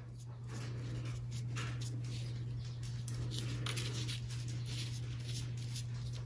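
Paintbrush dabbing and brushing thin paint onto a maple leaf on paper: soft, irregular bristle scratches, over a steady low hum.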